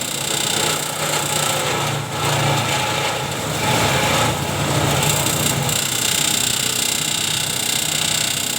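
Multi-purpose chopper machine running steadily with a high motor whine. A rougher, louder stretch from about a second and a half to five and a half seconds in.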